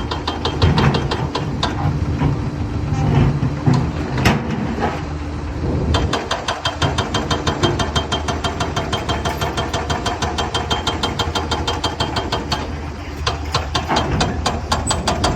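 Diesel excavator engine running, with a single sharp knock about four seconds in. From about six seconds in it settles into a steady, rapid clatter.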